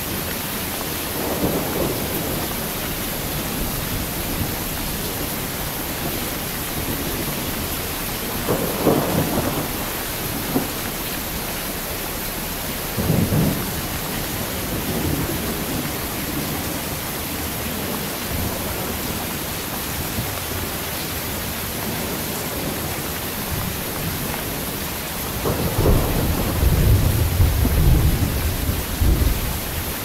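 Heavy rain falling steadily, with thunder rumbling: short rolls about a second, nine and thirteen seconds in, and a longer, louder rumble near the end.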